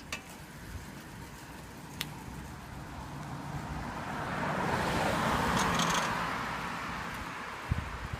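A car passing on the road alongside: its tyre and engine noise swells to a peak about five seconds in, then fades as it pulls away. A few sharp clicks sound over it.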